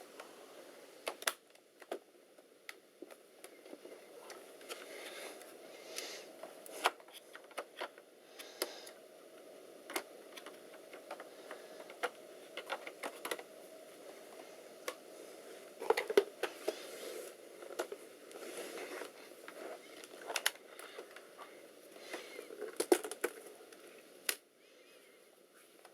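Irregular small clicks and light knocks, some in quick clusters, over a steady background hum and hiss.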